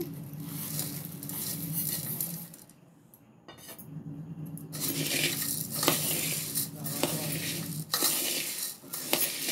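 Dry namkeen mix poured from a steel bowl onto puffed rice in a metal pot, the crisp pieces pattering and rustling. After a short pause, a hand mixes the puffed rice and namkeen, a dry crunchy rustle with sharp clinks against the pot.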